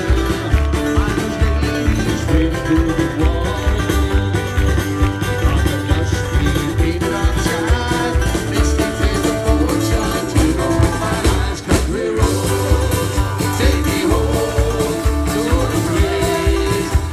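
Live band playing with a steady beat: upright bass, drum kit, electric and acoustic guitars, with singing.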